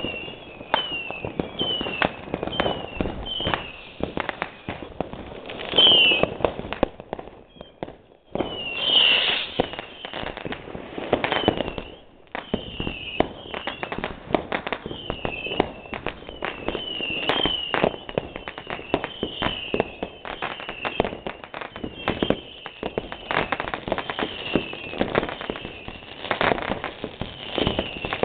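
Fireworks and firecrackers going off without a break: a dense stream of bangs and crackles with many short falling whistles over the top. Two louder blasts come about six and nine seconds in.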